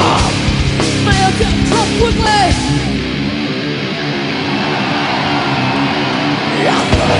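Metal band playing live, with electric guitars and drums. About three seconds in the drums and low end drop out, leaving the guitars, and the full band comes back in near the end.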